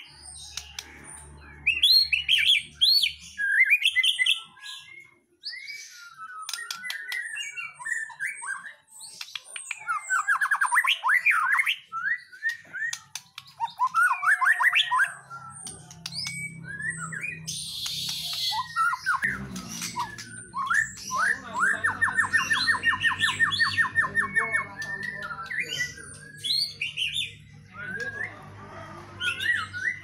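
Caged white-rumped shama singing: a varied stream of whistled phrases and quick gliding notes, with a brief harsh rasping note near the middle and a long, fast trill of evenly repeated notes about two thirds of the way through.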